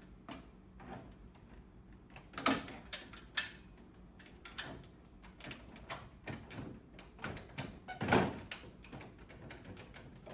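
Irregular clicks and knocks of the AUX air conditioner's plastic casing parts being handled and fitted back into place, with two louder knocks, about two and a half seconds in and about eight seconds in.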